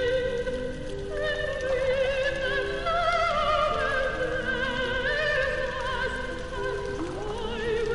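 Operatic singing with a wide vibrato over a soft accompaniment of short held notes, as from an opera film soundtrack.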